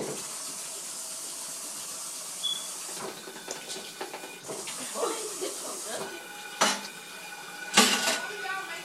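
Dishes and utensils being handled at a kitchen counter, with a light click a few seconds in and two sharp knocks near the end, over a steady hiss.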